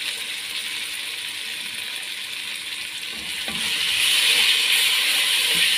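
Onion-and-tomato masala sizzling in hot oil in a nonstick pan while being stirred with a spatula; the sizzle grows louder about three and a half seconds in.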